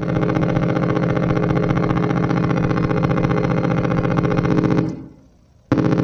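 A homemade noise oscillator synth built into a doll's head puts out a steady, buzzing electronic drone. About five seconds in it dies away to near silence, then cuts back in abruptly just before the end as its controls are worked.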